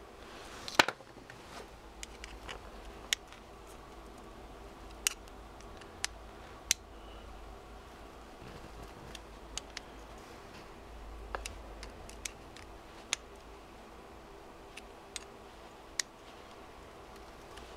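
Small metal clicks and taps from handling the BMW ignition's Hall-effect trigger plate and a small hand tool during reassembly: about a dozen sharp, irregular clicks, the loudest a little under a second in, over a faint steady hum.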